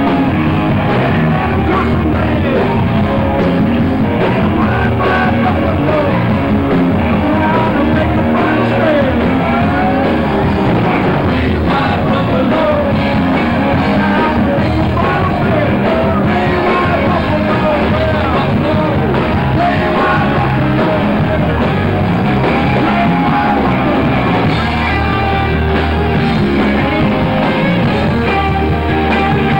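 Live rock band playing loud electric guitar, with voices singing and yelling into a microphone over it, without a break.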